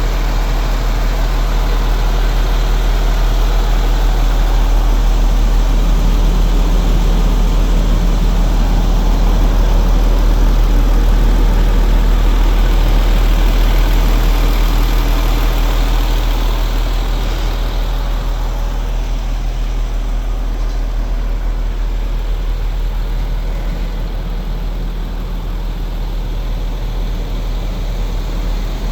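A MAN TGX 400 truck's diesel engine running steadily with a strong, deep low hum. It grows slightly louder toward the middle, then eases a little after about sixteen seconds.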